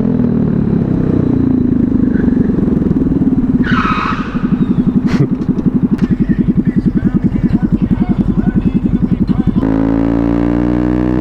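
Honda Grom's 125 cc single-cylinder engine running while riding. From about four seconds in it settles into a fast, even putter for several seconds, then smooths out to a steady note near the end.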